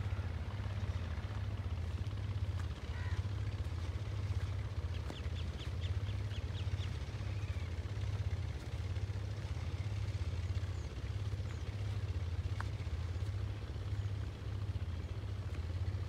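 A low engine running steadily with an even, pulsing throb. A bird gives a quick run of about eight high notes about five seconds in, and one short chirp later on.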